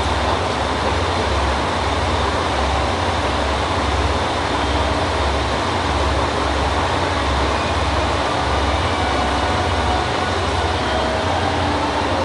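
KiHa 185 diesel railcar idling at a station platform: a steady low engine rumble with an uneven throb, under a continuous wash of station noise.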